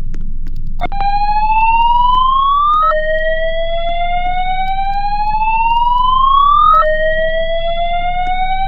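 Fire alarm evacuation system sounding its whoop tone: a tone that sweeps upward over a few seconds, drops back sharply and rises again, starting about a second in. A low steady hum runs underneath.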